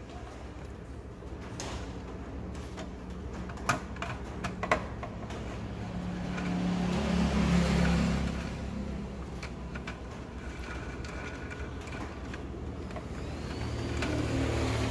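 A few sharp clicks and rattles of wiring and plastic connectors being handled and unplugged inside an inverter welder. Under them runs a low rumble that swells about halfway through and then fades.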